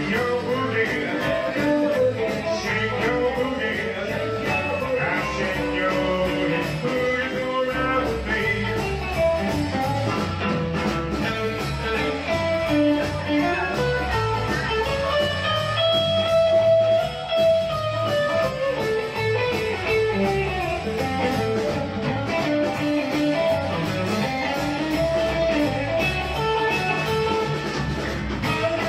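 A live band plays an instrumental break: lead lines on a semi-hollow electric guitar over bass guitar and a drum kit keeping a steady beat.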